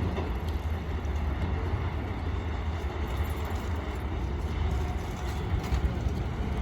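Keisei 3700-series electric train running past on the tracks, a steady rumble of wheels on rail.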